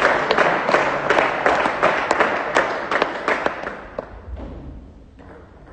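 Spectators clapping after a rally, the applause dying away about four seconds in.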